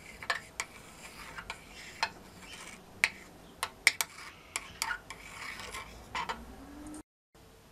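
Glass stirring rod clinking and scraping against the inside of a glass beaker while stirring a thick, watery-jelly soap mixture of oils and potassium hydroxide. Irregular sharp taps, the loudest about three and four seconds in, sound over a soft rubbing, and the sound cuts off suddenly near the end.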